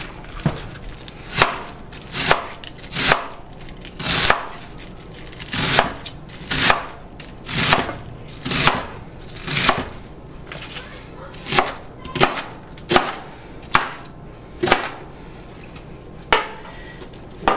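Chef's knife chopping cabbage on a wooden cutting board: a steady run of sharp knocks, about one chop a second.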